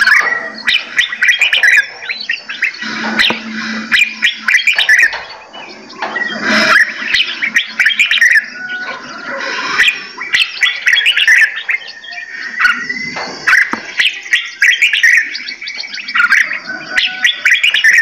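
A mix of caged songbirds chirping and singing together, with many short calls and trills overlapping without a break.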